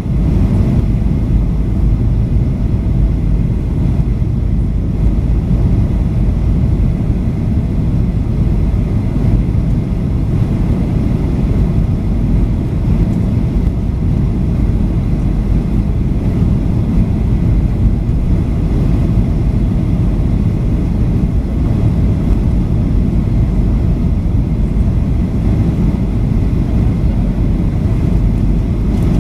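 Boeing 737-800 cabin noise on final approach, heard from a window seat over the wing: a steady low rumble of the CFM56 turbofans and the airflow around the extended flaps. A faint steady whine sits above it.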